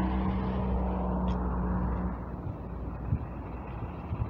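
A road vehicle passing along the street: a low engine hum with a steady tone, loudest for the first two seconds, then fading into low street rumble.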